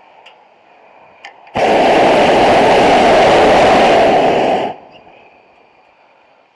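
Hot air balloon's propane burner firing in a single blast of about three seconds, a loud even roar that starts and cuts off abruptly. A couple of faint clicks come just before it.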